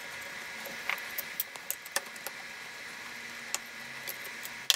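Small metallic clicks and scrapes of a screwdriver working the mounting screws of an STK hybrid power amplifier module on its aluminium heatsink, and of the module being handled, over a steady faint hiss. A sharper click comes near the end.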